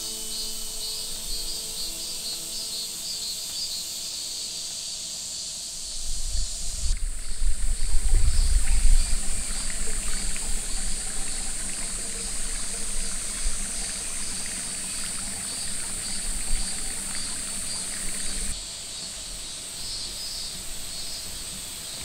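Outdoor forest ambience: a steady high hiss with repeated chirping. About six seconds in, a loud low rumble of wind on the microphone rises and then eases, with a scatter of small ticks and rustles for some seconds after it.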